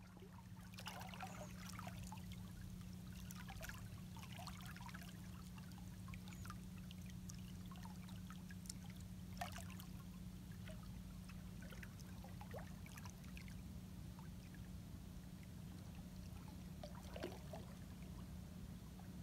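Faint water lapping and trickling against the hull of a slowly moving boat, with small scattered splashes over a steady low hum.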